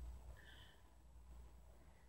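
Near silence: room tone with a faint low hum, and a faint short breath about half a second in.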